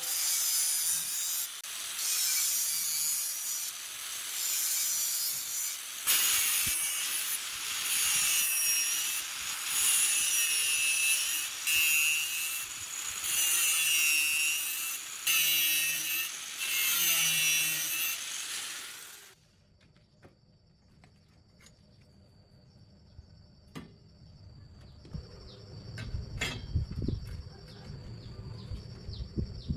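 A power tool cutting in repeated passes of a second or two each, with a wavering whine over a loud hiss. It stops abruptly about two-thirds of the way through, leaving a faint steady high tone and scattered ticks.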